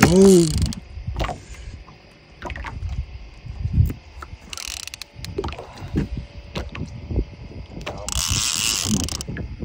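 Clicking and knocking of a fishing reel and tackle against the boat while a large flathead catfish is fought on a heavily bent rod. A short shout comes at the start, and a hissing burst of about a second comes near the end.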